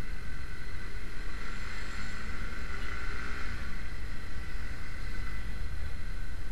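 Honda CB150R's single-cylinder engine running at low road speed, its note shifting gently with the throttle, under a heavy, steady rumble of wind on the action camera's microphone.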